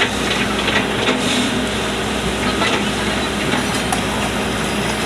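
Kobelco hydraulic excavator loading gravel and sand: its diesel engine runs steadily under a continuous gritty rushing of loose material, with a few faint clicks.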